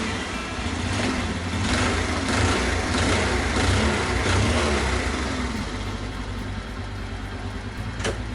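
Honda Super Cub's single-cylinder four-stroke engine running after a clutch plate replacement, revved up a little and then easing back toward idle. A single sharp click near the end.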